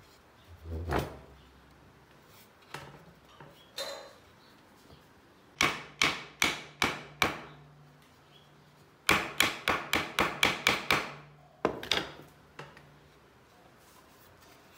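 Wood knocking on wood: a wooden piece struck repeatedly against the round wooden top of a vase stand. There are about five knocks a little under half a second apart, then a faster run of about eight at some four a second, then two more. A duller thump comes about a second in.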